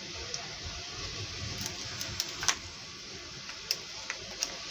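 Ice cubes dropped into glasses of thick mango milkshake, giving a few short, light clicks against the glass, the loudest about halfway through, over a steady low hiss.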